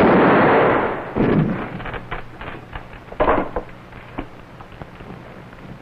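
A revolver shot at the start, its ringing tail fading over about a second. Then a few scattered knocks and thuds, the loudest a sharp knock about three seconds in.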